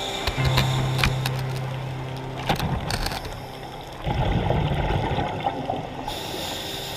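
Underwater sound of a scuba diver's breathing through a regulator: scattered clicks and a steady low hum, then a gurgling rush of exhaled bubbles about four seconds in.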